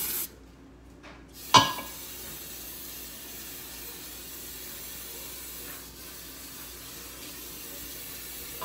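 Aerosol cooking spray hissing steadily as a bundt pan is coated. It breaks off briefly just after the start and resumes about a second in. A single sharp clank about a second and a half in is the loudest sound.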